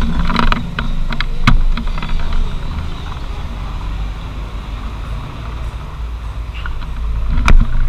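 Low rumble of a motor vehicle's engine running nearby, growing louder near the end, with a few sharp clicks.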